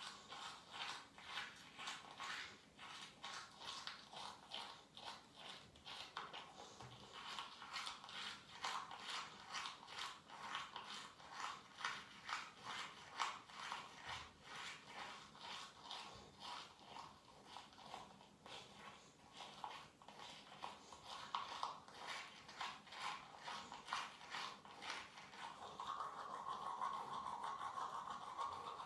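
Manual toothbrush scrubbing teeth close to the microphone: quick scratchy back-and-forth strokes, about two to three a second, going on steadily. A steadier hiss joins in near the end.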